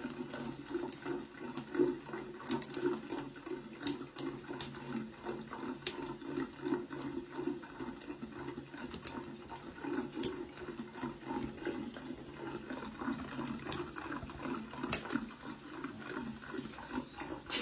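Water running and splashing steadily, with scattered small clicks.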